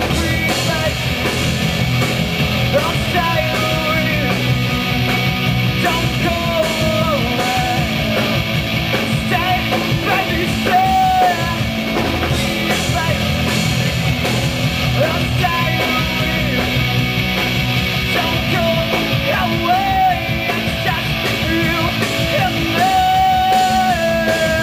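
Live power-pop rock band playing: a male vocalist sings the melody over two electric guitars and a drum kit, all amplified.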